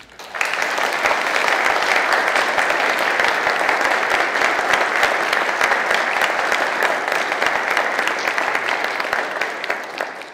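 Church congregation applauding, many hands clapping together. It swells up about half a second in, holds steady, and fades away near the end.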